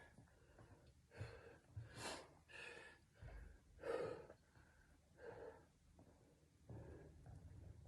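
Faint heavy breathing: about six short, hard breaths, as of a player winded from a dribbling workout.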